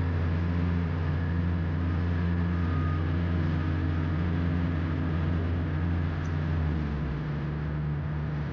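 A large engine running steadily with a deep, even drone, easing off slightly near the end.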